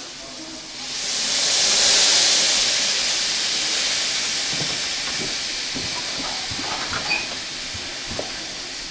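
Live-steam miniature locomotive letting off steam: a loud hiss that swells about a second in, then slowly dies away. A few light clicks and taps follow near the end.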